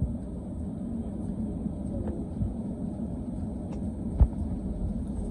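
Passenger train running, heard from inside the carriage: a steady low rumble, with a few light clicks and one sharp knock about four seconds in.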